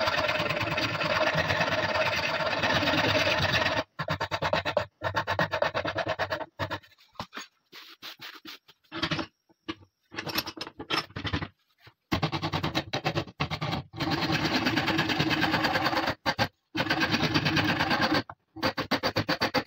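Coarse wood rasp scraping across a wooden shotgun butt stock held in a vise, in quick repeated strokes. It stops for a few seconds in the middle, leaving only scattered handling sounds as the stock is repositioned, then starts again.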